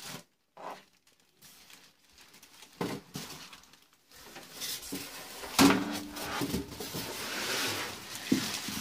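Unpacking sounds: styrofoam packing blocks being pulled off and clear plastic wrap rustling and crinkling. A few small knocks in the first half, then continuous plastic rustling from about halfway, with a louder knock of the foam about two-thirds through.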